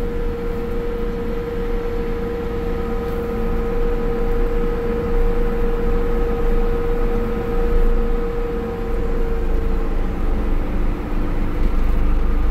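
Case IH Steiger 580 four-wheel-drive tractor driving along a field road, heard from inside the cab: a steady engine drone and rumble with a steady whine that fades out about ten seconds in.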